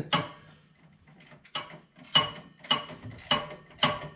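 Hand socket ratchet tightening a battery hold-down bracket screw. The pawl clicks in short bursts, one about every half second, about seven strokes with a metallic ring.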